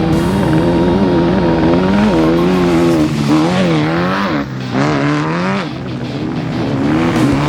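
Off-road race vehicle's engine revving hard, its pitch rising and falling again and again as it is driven flat out, with music faintly underneath.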